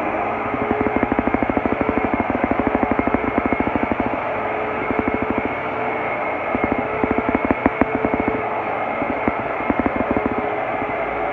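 Hoover WindTunnel self-propelled upright vacuum cleaner running: a steady motor hum and whine with a rapid fluttering pulse that comes and goes.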